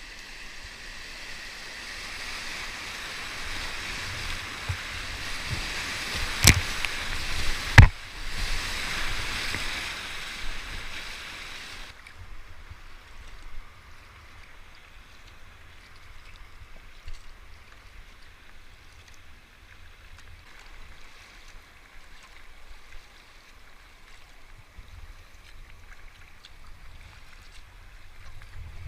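River water rushing and splashing around a kayak, building up over the first dozen seconds, with two sharp knocks about six and eight seconds in. It then drops suddenly to quieter flowing water with light paddle splashes and small ticks.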